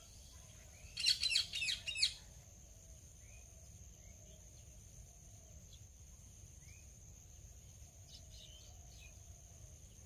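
Indian ringneck parakeet giving a quick burst of rapid, high-pitched calls about a second in, lasting about a second, with a few faint calls near the end.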